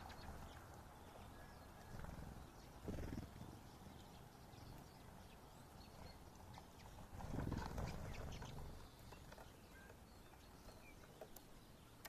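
Small songbirds feeding on the ground among sunflower seed husks: scattered faint pecking clicks and a few short, soft call notes. Two low rumbles, about three and seven and a half seconds in, are the loudest sounds.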